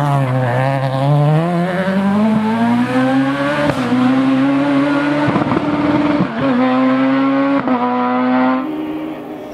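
Peugeot 306 Maxi rally car's naturally aspirated four-cylinder engine: the revs fall as it slows, then it accelerates hard through several quick upshifts, the pitch climbing and dipping at each gear change. Near the end the engine sound drops suddenly quieter.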